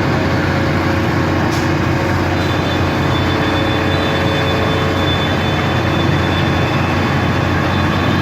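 Engine of a large vehicle, likely a fire engine, running steadily as a low, even drone, with no siren sounding.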